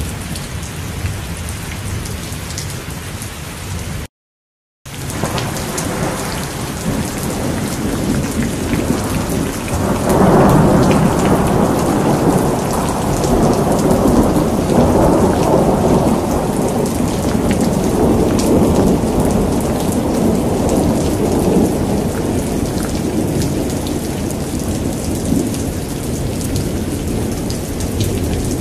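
Rain falling steadily with the patter of drops on a wet surface, and a long roll of thunder that swells about ten seconds in and slowly dies away. The sound cuts out completely for a moment about four seconds in.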